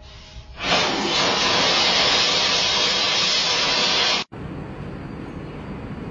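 Toy-stuffing machine blowing fibre filling through its nozzle into a plush horse. A low motor hum comes first; about a second in, a loud steady rush of air starts and then cuts off suddenly about three seconds later. A quieter steady rushing noise follows.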